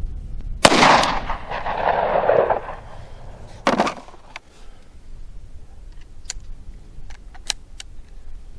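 A single gunshot from a Smith & Wesson Model 60 2-inch snub-nose revolver firing Federal Punch .38 Special +P hollow-point ammunition, with a long rolling echo fading over about two seconds. About three seconds after the shot comes a shorter sharp knock, and later a few light clicks of the revolver being handled.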